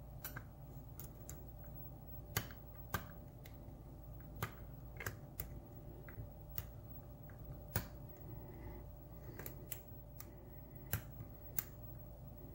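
Metal lock pick and tension wrench clicking against the pins and keyway of a brass challenge-lock cylinder during single-pin picking: irregular sharp clicks, a few louder than the rest, over a faint steady hum.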